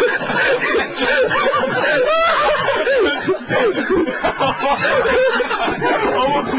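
People laughing and snickering, with several voices overlapping.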